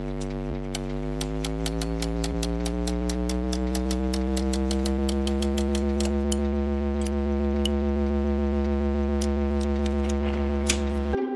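Background music: a sustained electronic drone chord that slowly rises in pitch over a steady ticking beat of about four ticks a second, cutting off just before the end.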